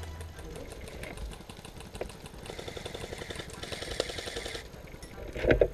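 Airsoft rifles firing in rapid full-auto bursts, a fast run of clicks, with a few louder knocks near the end.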